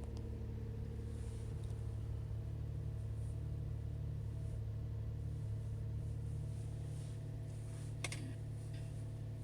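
A car engine idling steadily, with a single short click about eight seconds in.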